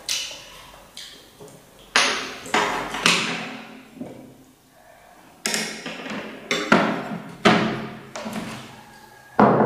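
Ceramic bowls clinking and knocking as they are set down and shifted on a table: a string of sharp knocks at irregular intervals, some ringing briefly.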